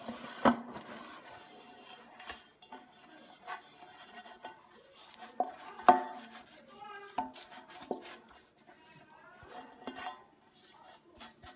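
The nonstick pan of a T-fal ActiFry being handled and turned over. It knocks and clanks with brief ringing: a sharp clank about half a second in, and the loudest one about six seconds in.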